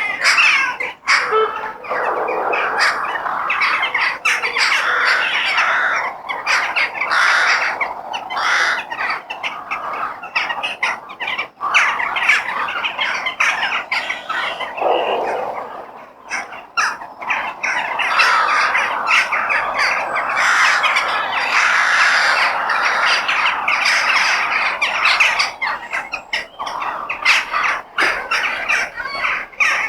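A flock of crows cawing harshly and without pause, many calls overlapping.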